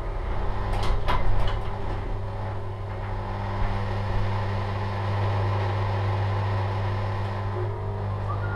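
Electric garage door opener running as the door rises, a steady motor hum with a few clicks about a second in and a short rising squeak near the end.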